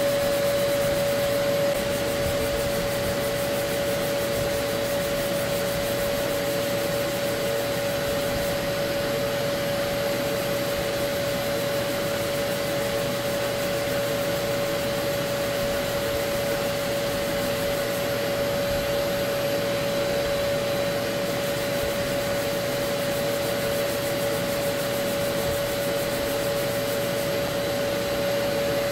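Dust-extraction vacuum running steadily, drawing air through a hose on a hand sanding block used on body filler, with a constant hum over a hiss.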